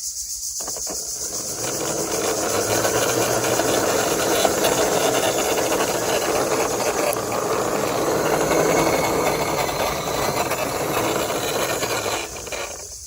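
A toy car run along by hand: a steady rolling, rushing noise that lasts about twelve seconds and fades near the end.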